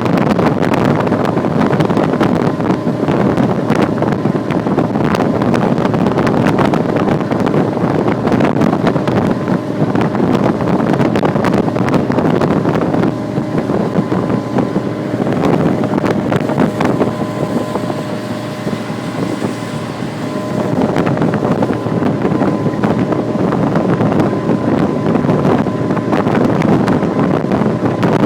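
Sea Ray motorboat running underway, a steady engine and water rush with wind buffeting the microphone. The level drops for several seconds about halfway through, then comes back up.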